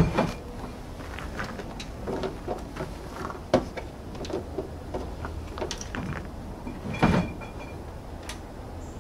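Scattered knocks, clicks and scrapes of wooden platform boards and plastic milk crates being handled in a pickup bed under a truck cap, with a sharper knock about three and a half seconds in and a louder one about seven seconds in.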